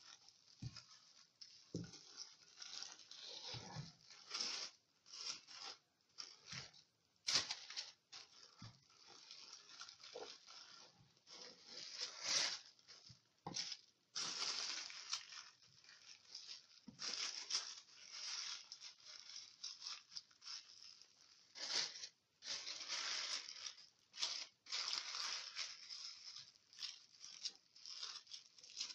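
Dried pork-casing sheet rustling and crackling in irregular bursts, with small clicks, as it is wrapped by hand around rolled raw pork belly.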